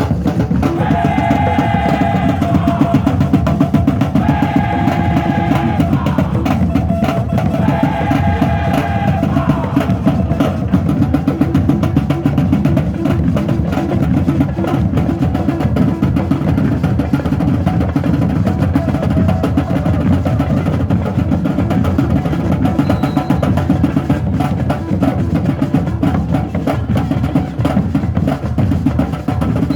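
Tamboril drums played together in a fast, continuous beat. A held, high-pitched tone sounds three times in the first ten seconds.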